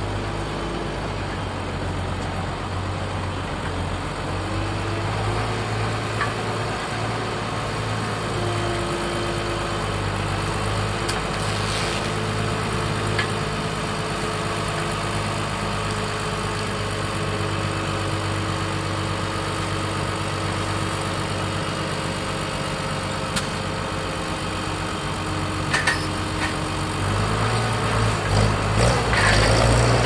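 International 955 tractor's diesel engine running steadily at low revs under the load of its crane lifting a fertiliser bag. The engine gets louder about three seconds before the end.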